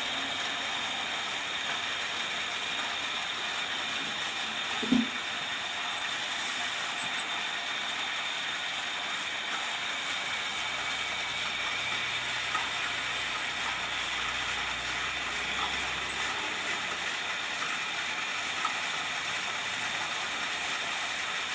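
Metal-turning lathe running steadily during a turning cut, with a steady high whine over the machine noise. A single knock about five seconds in.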